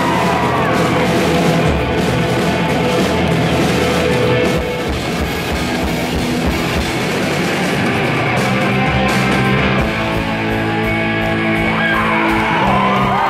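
Rock band playing live: electric guitar and a drum kit, loud and dense.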